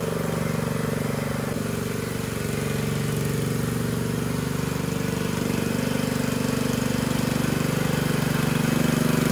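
Small engine of a shed mover running steadily while it tows a wheeled chicken coop.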